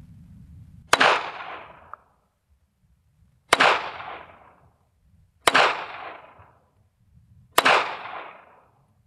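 Four single shots from a semi-automatic pistol, spaced about two to three seconds apart, each trailing off in about a second of echo.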